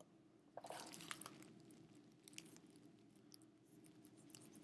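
Near silence: faint room hum with a brief scratchy rustle of clicks a little after half a second in, then a few isolated faint ticks.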